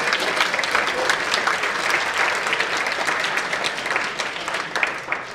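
A large audience in an auditorium applauding, with many hands clapping at once; the clapping thins out and fades near the end.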